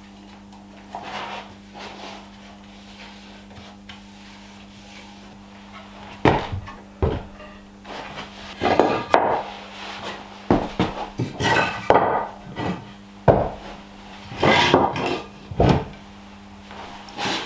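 Irregular knocking and clattering of hard objects being handled, starting about six seconds in, over a steady low hum.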